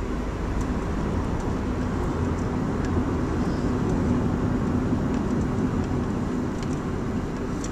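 Steady road and engine noise of a car driving at highway speed, heard from inside the cabin, with a low steady hum under it.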